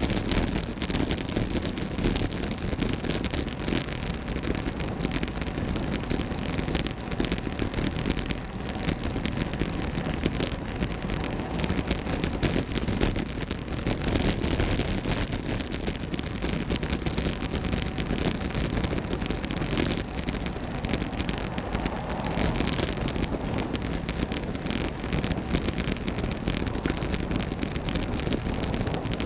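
Wind rushing over the microphone of a camera on a moving road bike, mixed with steady tyre and road noise and constant small crackles.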